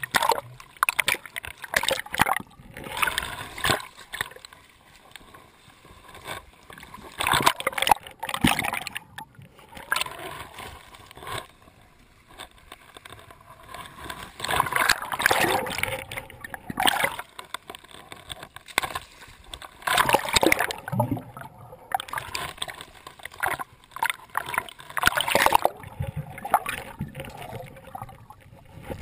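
Sea water sloshing, splashing and gurgling around a camera's waterproof housing as it bobs at the waterline, dipping under and surfacing, in irregular surges every few seconds.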